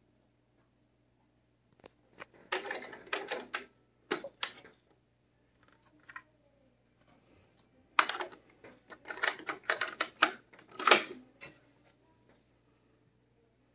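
Cassette mechanism of a Teac AD-RW900 deck clicking and clattering in two bursts of rapid clicks, each a second or two long, several seconds apart, over a faint low steady hum.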